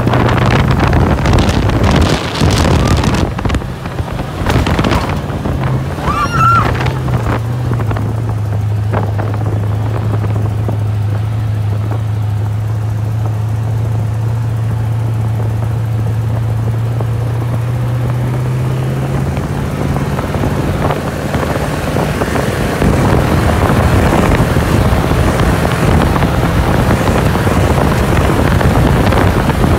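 Dune buggy engine running at a steady pitch under wind buffeting the microphone as the buggy drives over the sand. The rushing wind gets louder over the last several seconds.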